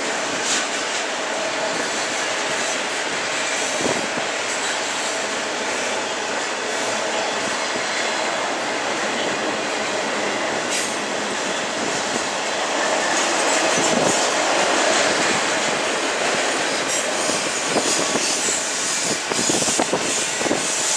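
Union Pacific freight train rolling past, its steel wheels running on the rails with clicking over rail joints and some wheel squeal, getting a little louder after about twelve seconds.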